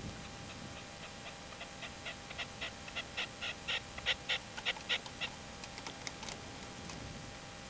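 Red-legged partridge calling: a run of short chuckling notes, about four a second, that grows louder and then breaks into quicker, fainter notes about six seconds in.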